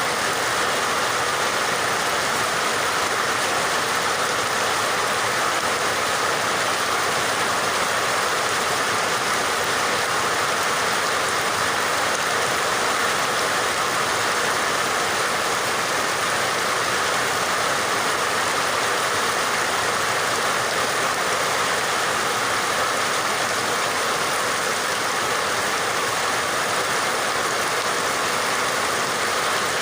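Steady rain falling, an even hiss of water with no breaks or single drops standing out.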